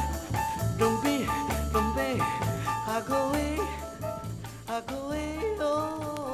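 Early-1960s Brazilian samba record playing from a mono vinyl LP on a turntable: singing over a band with bass and percussion, fading out steadily as the song ends.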